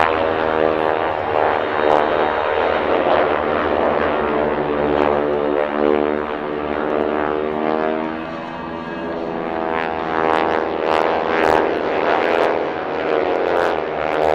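Pratt & Whitney R-1340 Wasp radial engines, about 600 horsepower each, on propeller airplanes flying past in trail at close to 200 mph. The engine drone rises and falls in pitch as they pass. A few sharp cracks sound in the latter half.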